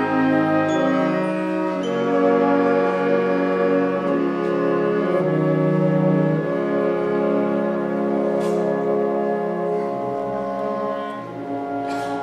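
Concert wind band playing held chords, brass and woodwinds together, the harmony shifting every couple of seconds and easing a little in loudness near the end.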